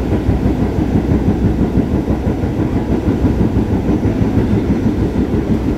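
Staten Island Railway R44 subway car running along the line: a steady low rumble of wheels on rail and traction equipment.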